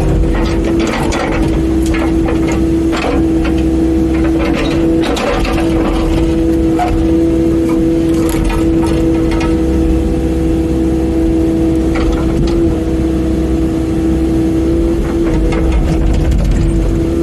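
Mini excavator running steadily, its engine rumble carrying a constant humming tone, with scattered clanks and knocks as the bucket and thumb work.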